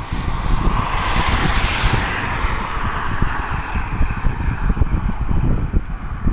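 Wind buffeting the microphone with a steady low rumble. A car passes on the roadside: its rushing tyre noise swells during the first second or so and fades away by about two and a half seconds in.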